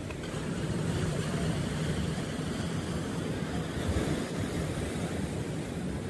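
Sea waves breaking and washing in: a steady rush of surf with a low rumble, swelling a little about a second in and again around four seconds.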